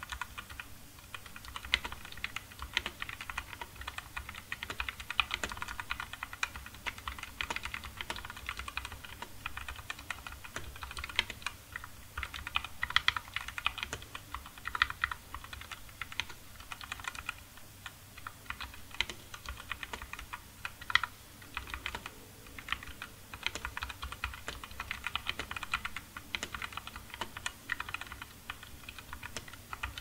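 Continuous typing on a Digital Alliance Meca 6 Plus 65% mechanical keyboard with Outemu linear switches: a dense, unbroken run of keystrokes, with the spring ping typical of Outemu switches.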